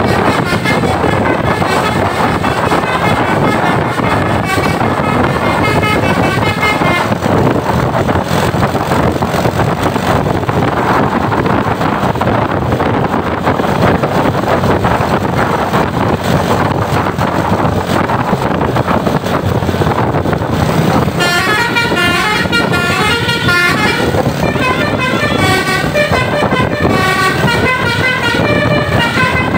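Tour bus 'telolet' musical air horn playing a tune of quickly changing notes, once in the first few seconds and again over the last third, over steady loud bus engine and road noise.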